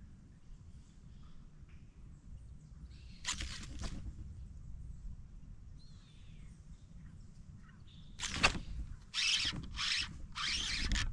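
Faint bird calls over a quiet river, then about 8 seconds in a sharp knock and a run of loud rasping bursts from a baitcasting reel as a big fish takes the artificial-shrimp jig and bends the rod.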